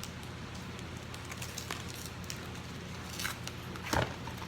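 Crinkling and clicking of plastic packaging and card holders being handled and opened, in scattered short bursts, loudest about three seconds in and again near four seconds.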